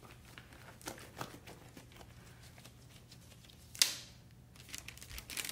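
Sterile surgical glove being worked onto a hand: soft rustling and small crinkling ticks, with one sharp snap a little under four seconds in and a quick run of small clicks near the end.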